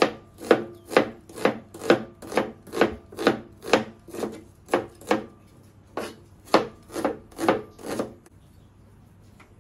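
Kitchen knife chopping an onion on a cutting board, even strokes about two a second with a brief pause partway, stopping about eight seconds in.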